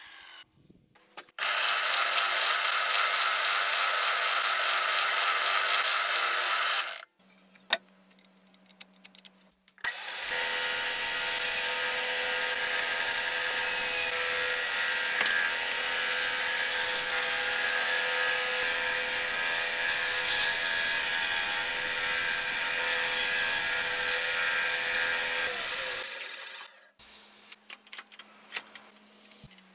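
Band saw cutting through a length of ash log with the bark on, the blade running steadily through the wood for about fifteen seconds. Before it, another machine runs steadily for about five seconds. Near the end there are a few light handling clicks over a low hum.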